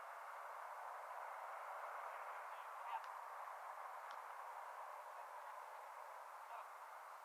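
Faint, steady background noise with no clear source, with a couple of small ticks in the middle.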